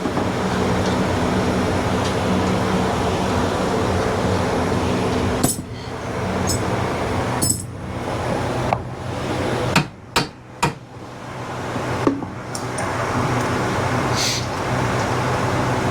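Sharp metal knocks and clinks from hand tools striking metal parts during the shock fitting, about half a dozen, with three close together near the middle, over a steady mechanical hum.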